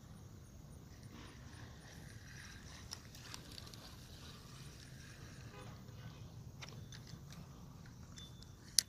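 Fishing rod and spinning reel being handled for a cast: faint scattered clicks and one sharp click near the end, over a low steady rumble.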